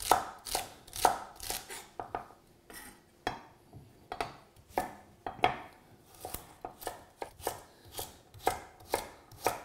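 Chef's knife dicing celery and carrot on a wooden chopping board: a steady run of blade knocks on the wood, about two a second, with a brief lull about two to four seconds in.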